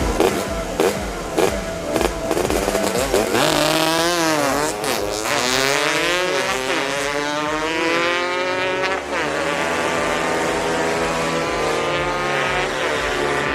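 Vocal imitation of a motorcycle engine: a buzzing 'vroom' made with the voice, its pitch sweeping up and down over and over like an engine revving and changing gear.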